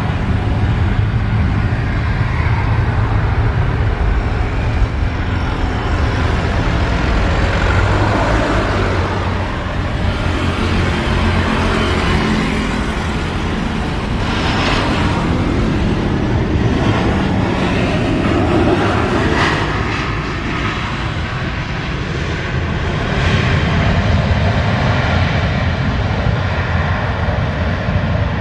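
Boeing 737-800 airliner's CFM56-7B jet engines heard during its landing approach, touchdown and rollout: a continuous, loud rushing noise with slow swells in level.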